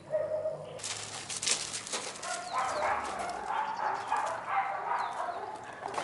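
Several dogs barking and yelping over a rough scuffling noise that starts about a second in.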